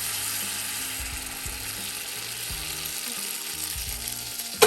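Carrot halwa mixture sizzling in a hot pan and being stirred as milk is added, the hiss easing a little; a single sharp clink near the end.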